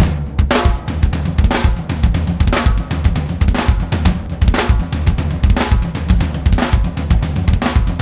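Music soundtrack starting abruptly: a loud, driving drum beat with bass drum, snare and cymbals, a dense run of strikes throughout.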